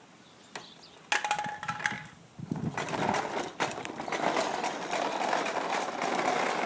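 A child's toy lawn mower being started with its pull string: a few clicks and a short rattle, then a steady, rattling running noise starts about two and a half seconds in and keeps going.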